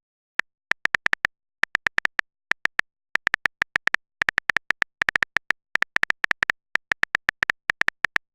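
Smartphone on-screen keyboard clicking as a message is typed: short, identical clicks in irregular runs of two to five, at a typing pace.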